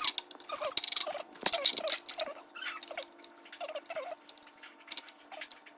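Spoon and bowl scraping and tapping as muffin batter is ladled into molds: scattered light clicks and scrapes with a few brief small squeaks, over a faint steady hum.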